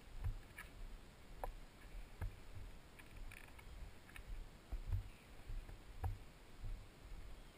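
Walking noise picked up by a body-worn camera: dull low thumps roughly once a second with each footstep on a paved path, mixed with faint clicks and rubbing from clothing against the camera.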